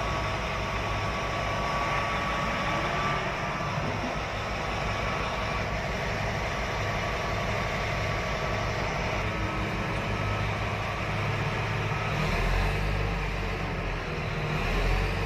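Diesel engine of a Caterpillar 777 off-highway haul truck running under way, heard from inside the cab as a steady low rumble. The engine note grows heavier about twelve seconds in.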